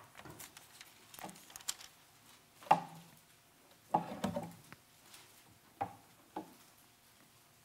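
Faint rustling and a scatter of soft taps and knocks as Bible pages are turned to find a passage.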